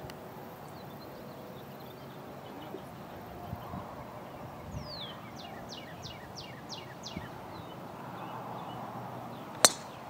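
A driver striking a golf ball off the tee: one sharp crack near the end. Earlier, a bird sings a quick run of about seven descending whistled notes over quiet outdoor background.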